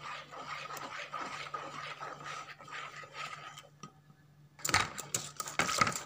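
Wire balloon whisk beating a thin flour-and-water batter in a plastic bowl: rapid swishing and clicking of the wires against the bowl, mixing the batter smooth. The strokes pause briefly about two-thirds of the way in, then return louder and faster near the end.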